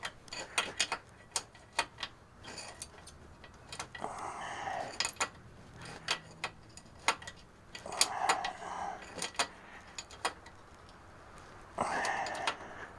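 Irregular small metal clicks and taps of a wrench working a breather vent fitting into a semi truck's rear differential housing, with a few short soft rustles in between.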